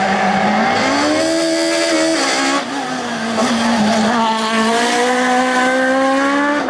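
Maxi kit car's high-revving four-cylinder rally engine under hard acceleration: the pitch climbs, drops sharply with a brief dip about two and a half seconds in as it shifts gear, then climbs again.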